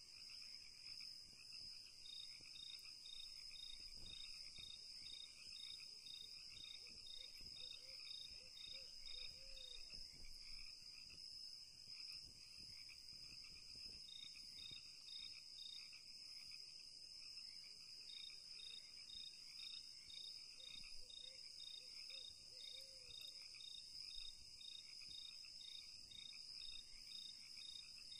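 Faint insect chirping: a high pulsed chirp repeating about three times a second, pausing now and then, over a steady high hum. Faint low scuffs come through in the middle.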